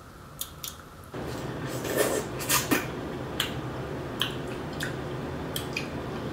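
Close-miked wet chewing and lip-smacking of juicy pineapple chunks, scattered sharp smacks with a couple of louder ones about two seconds in. A steady low hum comes in about a second in.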